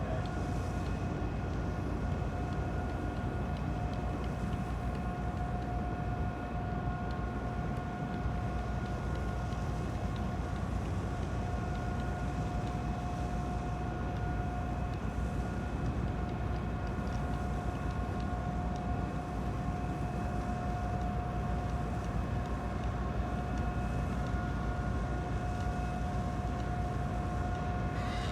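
Sado Kisen car ferry Kogane Maru's machinery running steadily: a low rumble with a constant hum on top.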